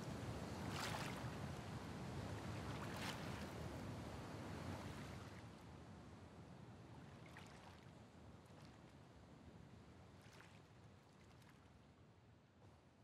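Ocean waves washing onto a beach, with a few louder surges early, the whole sound fading out gradually over the last several seconds.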